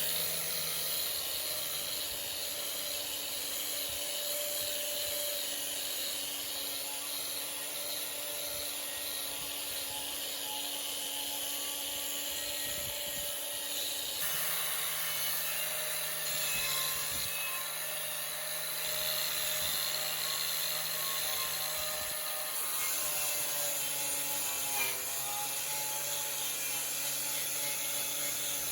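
Electric power tool running steadily with a constant motor hum and whine, changing abruptly about halfway through and again near the end.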